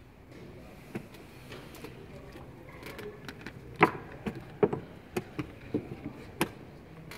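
Wooden chess pieces clacked down on a wooden board and chess clock buttons slapped in a blitz time scramble with only seconds left on the clock. One knock comes about a second in, then the loudest about four seconds in, followed by a quick run of about eight more knocks.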